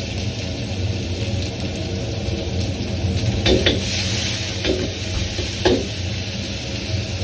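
Food sizzling and frying in a wok over a steady low rumble, with a metal ladle knocking and scraping against the pan a few times, about halfway through and again near the end.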